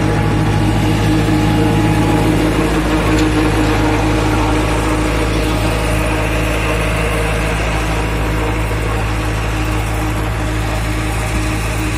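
Tractor engine running steadily, driving a clay mixing machine that pushes out wet clay.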